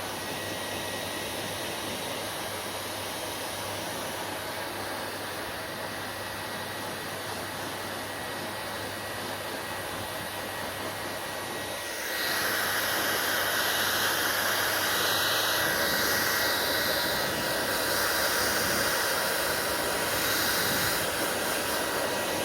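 Hair dryer blowing steadily with a faint whine; about halfway through it jumps louder and hissier and stays that way.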